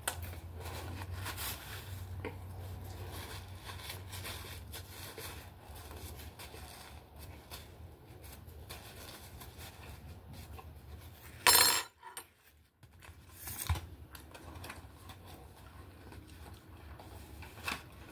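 Light clicks and clinks of a dish and eating utensils at a table, with one sharp, louder clatter about two-thirds of the way through, over a steady low hum.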